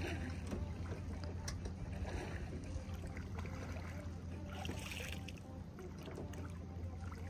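Kayak paddle strokes through calm water: soft swishes and drips as the blade dips, over a steady low rumble.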